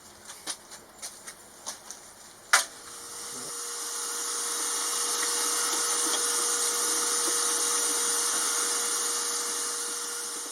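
A few light clicks and knocks of handling parts, the sharpest about two and a half seconds in, then a vacuum cleaner running with a steady hissing rush and faint whine that swells up smoothly and fades away near the end.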